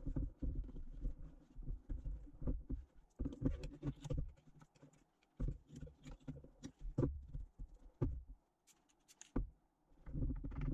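Irregular soft rubbing, light taps and low thumps as hands press and smooth dry carbon-fibre cloth into a plastic mould and handle the mould on the bench, with a sharper click about nine seconds in.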